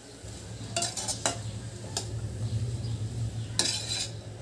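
A spatula stirring a thick chickpea-and-vegetable mixture in a metal kadai, scraping and knocking against the pan several times, over a steady low hum.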